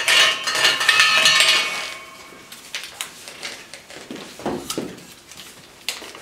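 Draw lots being stirred by hand inside a metal trophy cup: a dense clattering rattle with a metallic ring for about two seconds. After that come a few scattered clicks and knocks as a lot is picked out and handled.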